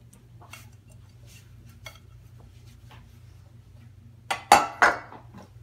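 Kitchenware clattering: faint taps and ticks as food is placed in a baking tray, then a louder clatter of three or four quick knocks of dishes a little after four seconds in.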